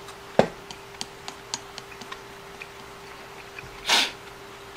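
Eating with chopsticks from a ceramic rice bowl. A sharp clack of chopsticks on the bowl comes about half a second in, then a run of light clicks. Near the end there is a louder, brief scraping clunk as the bowl is set down on the wooden table.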